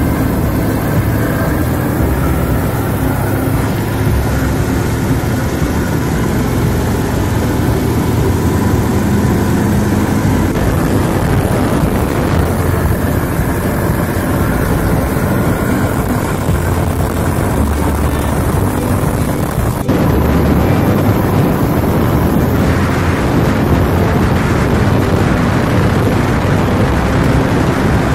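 A 30 hp long-tail boat motor and a 24 hp mud motor running at speed together, a steady loud engine drone with water rushing under the hulls. The sound shifts abruptly a few times and gets louder about 20 seconds in.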